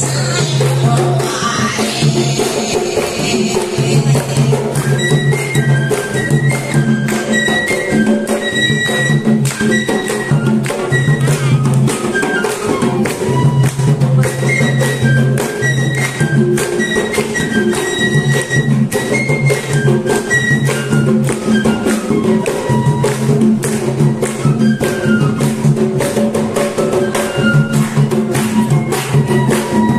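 Folk tune played live on a bamboo flute (bansuri) over a dhol, a large two-headed barrel drum, beaten in a steady, driving rhythm. The flute melody comes through clearly from a few seconds in.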